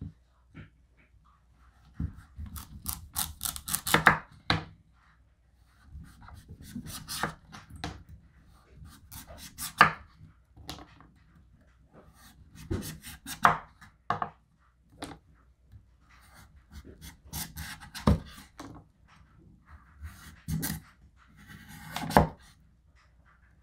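Victorinox 8-inch chef's knife slicing the rind off a standing butternut squash in downward strokes, rasping through the skin and knocking onto a wooden cutting board. The strokes come in several bursts, with about five sharp knocks of the blade on the board.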